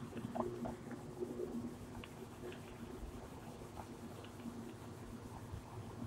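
Whiteboard being wiped with a duster: soft, irregular rubbing strokes across the board, over a faint steady low hum.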